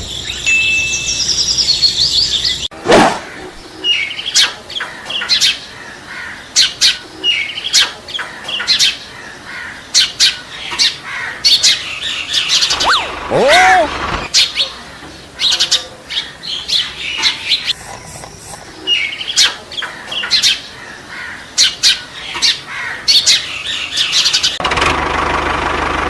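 Songbirds chirping, a steady run of short, sharp high calls with one swooping call about halfway through.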